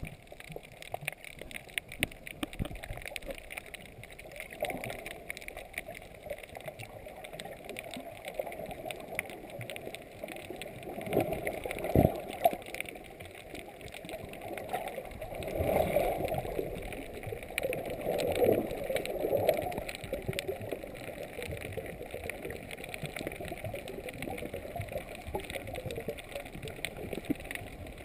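Muffled underwater sound of sea water sloshing and gurgling around a submerged camera, swelling a few times in the middle. A sharp knock comes a little before halfway.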